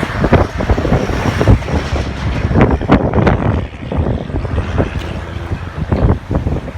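Strong wind buffeting the microphone in irregular gusts, a heavy low rumble broken by sudden loud blasts.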